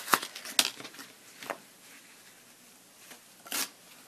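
A few short rustles and taps from hands handling crafting supplies while picking up twine. The louder ones come in the first second, with another about three and a half seconds in.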